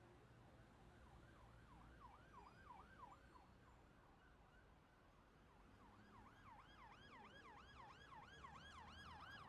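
Faint electronic siren in a fast yelp, its pitch sweeping up and down about four times a second. It sounds in two runs: briefly about a second in, then again from about halfway through, growing louder toward the end.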